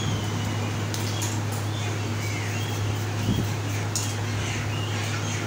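A steady low machine hum, with birds chirping faintly over it. A few light clicks and a single knock a little past the middle.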